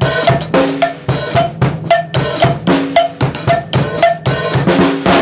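Drum kit playing a mor lam groove: a cowbell struck about twice a second over hi-hat, snare and bass drum.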